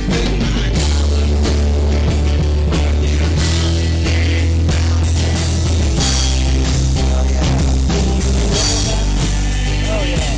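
A live rock band playing: guitars over a steady, loud bass line, with a drum kit.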